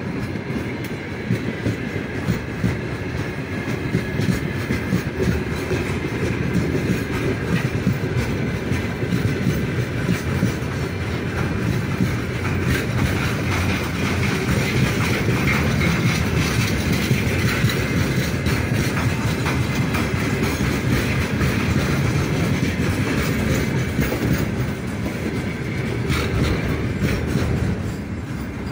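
Freight wagons of a long train rolling past close by, gathering speed: a steady rumble with the wheels clattering over the rail joints.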